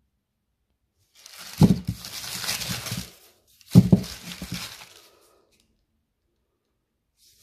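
The red paper wrapping of a brick of firecrackers being torn open and crumpled by hand, in two bursts: one about a second in and another a little before four seconds, each starting sharply.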